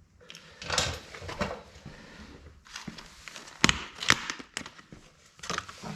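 Hands handling metal motorcycle parts and tools: scattered clicks and knocks with rustling between them, the sharpest knock about three and a half seconds in.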